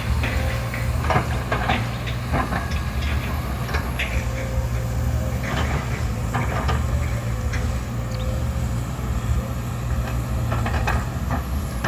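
Excavator working: its diesel engine runs steadily, with repeated sharp knocks and cracks from the machine handling oil palm trunks.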